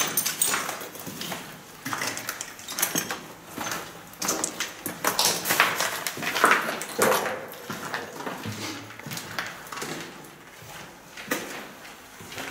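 Footsteps crunching and scuffing over rubble and debris on a floor, in an irregular series of steps.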